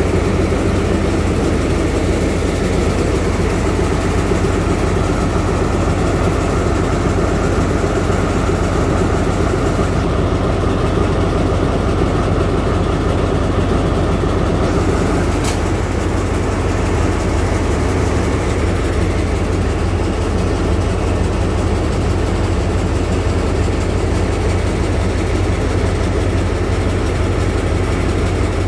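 Alsthom diesel-electric locomotive No. 4121 idling: a steady, loud, low engine rumble with no change in speed. A short, sharp click comes about halfway through.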